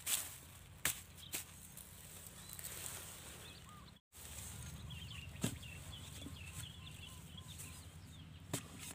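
A metal digging pipe is jabbed into hard, dry soil, giving several sharp, irregularly spaced strikes as a field-crab burrow is dug out.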